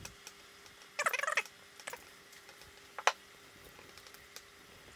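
Metal parts of an EQ5 equatorial mount being handled and fitted together: a short scraping rattle about a second in, a sharp click about three seconds in, and a few lighter clicks.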